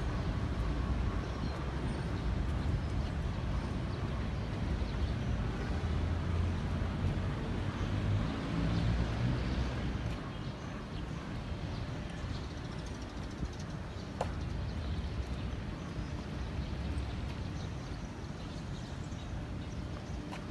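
Steady city street ambience of road traffic running, a little louder in the first half.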